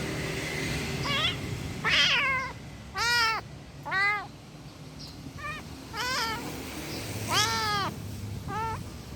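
An angry kitten meowing over and over: about eight short, high calls, each rising and falling in pitch, spaced roughly a second apart.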